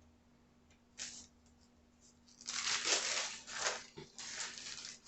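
Plastic cheese packaging crinkling and rustling as it is handled and pulled open, in uneven bursts through the second half, after a single light click about a second in.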